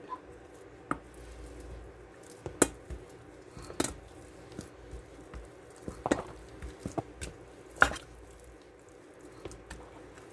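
Stainless steel potato masher pressing down into soft boiled potatoes in a metal bowl, lightly mashing them. Irregular clicks and knocks as the masher meets the bowl, a few louder ones among softer taps.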